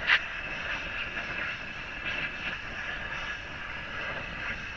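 A gas torch flame hissing steadily while it heats a seized CV axle nut, after one short sharp noise right at the start.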